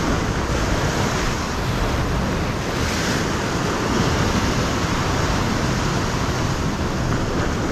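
Ocean swell surging and washing over a rock ledge in a steady rush of white water, a little louder about three seconds in.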